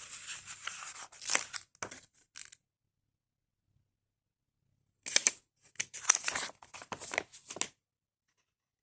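Paper rustling and crackling as the folded paper flaps and pages of a lapbook are handled and opened, in two spells with a silent gap between.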